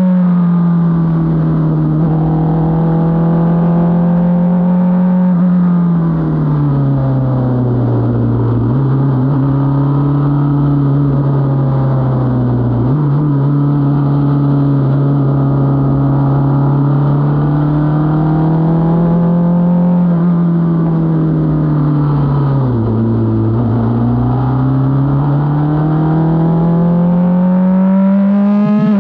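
Onboard sound of an F4 race car's engine on a flying lap. The engine note holds steady, drops away twice as the car slows for corners, picks back up, and climbs steadily near the end under acceleration.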